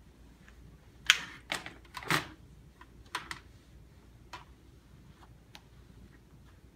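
Computer keyboard keys clacking irregularly as a cloth is wiped over them, a quick cluster of clicks in the first couple of seconds, then a few scattered ones.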